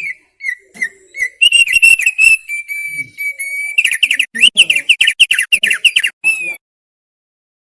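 Thick-billed white-eye (opior paruh tebal) singing. It gives a quick run of chirping notes, then a held whistle, then a fast series of short sharp notes, and stops about six and a half seconds in.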